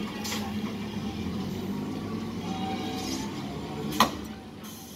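EMU local train rolling slowly past on the track, a steady rumble with a low hum, and a single sharp knock about four seconds in.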